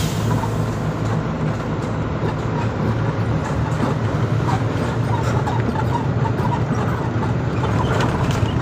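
Truck engine running steadily with tyre and road noise, heard from inside the cab while driving along.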